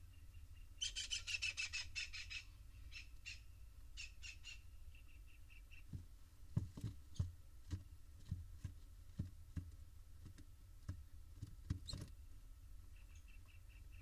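Barn owl nestlings calling in a wooden nest box: about a second in, a fast, high, pulsed chittering train, then a few shorter runs. From about six seconds in, scattered knocks and thumps as the chicks shuffle and bump against the box.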